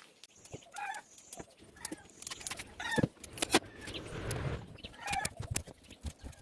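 Chickens clucking now and then, over short clicks and scrapes of a knife peeling a sweet potato. A brief rushing noise comes about four seconds in.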